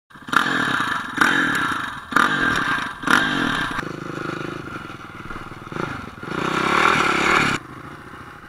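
Dirt bike engine revved in four sharp throttle bursts about a second apart, then running more steadily, with one longer rev before it drops suddenly back to a low idle near the end.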